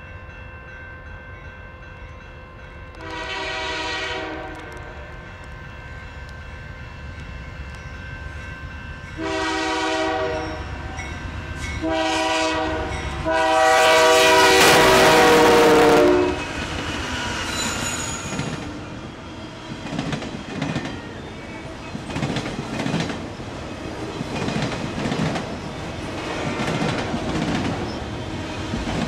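Canadian National GE D9-44CW diesel locomotive sounding its air horn in four blasts as it approaches. The last blast is the longest and loudest, and drops in pitch as the locomotive passes close by. Autorack freight cars then roll past, their wheels clicking rhythmically over the rails.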